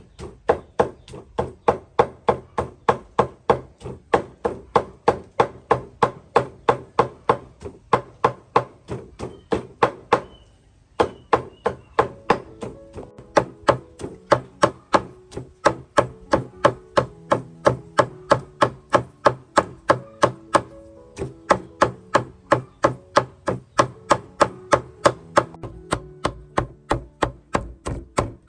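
Knife chopping food on a cutting board, fast even strokes about three to four a second, with a short pause about ten seconds in.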